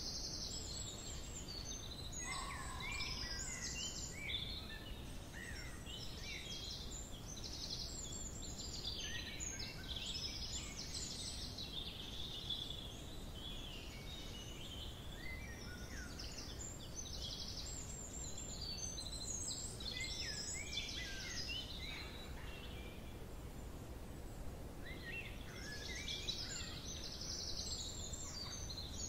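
Several small birds singing and calling at once, with many quick chirps and trills, over a steady low rumble. The birdsong thins out for a few seconds about three-quarters of the way through, then picks up again.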